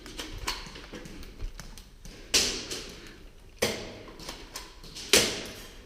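Airsoft replica shots: three sharp cracks about a second and a half apart, each echoing briefly in a hard-walled room, with a few fainter taps before them.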